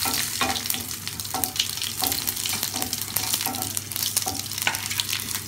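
Crushed garlic cloves and dried red chillies sizzling and crackling in hot oil in a frying pan, stirred with a wooden spatula that scrapes the pan now and then, while the spices are fried for a tempering.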